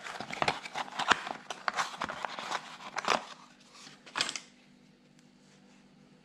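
Cardboard parts box being torn open and handled: a quick run of rustles, tears and clicks that stops about four and a half seconds in.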